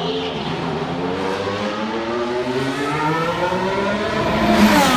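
Formula 1 car's 1.6-litre turbocharged V6 hybrid engine accelerating along the pit straight, its pitch climbing steadily through the gear, then falling away sharply at the very end as the car passes.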